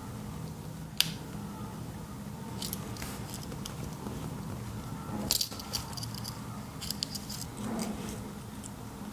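Swiss Army knife being handled, its metal tools clicking and rattling as they are opened and closed. One sharp click comes about a second in and a cluster of clicks about five to seven seconds in, over a steady low hum.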